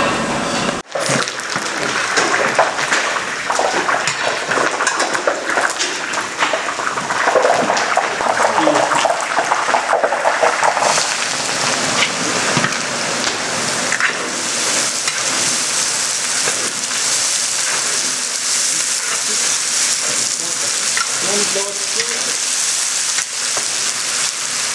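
Food frying in hot oil in a large pilaf cauldron: a steady, dense sizzle that turns to a brighter, higher hiss about halfway through.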